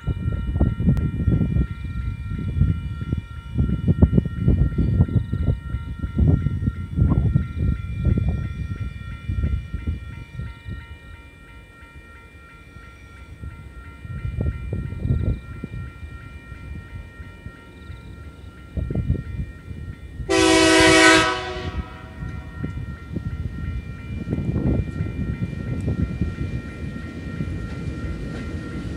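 Uneven low rumbling noise at first. Then, about two-thirds of the way in, one horn blast of about a second from TasRail diesel locomotive TR14 as it approaches the level crossing with a container train, followed by the growing low rumble of the locomotive drawing nearer.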